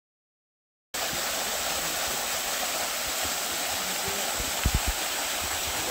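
Waterfall rushing, a steady even roar of falling water that cuts in suddenly about a second in. A few brief low bumps come just before the end.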